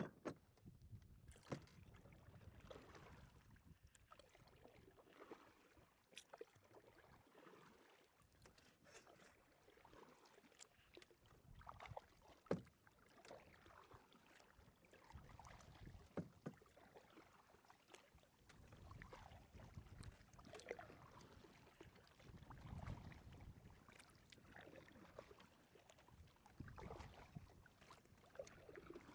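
Faint sounds from aboard a kayak: scattered light knocks and clicks, with soft water sounds and low wind rumble on the microphone.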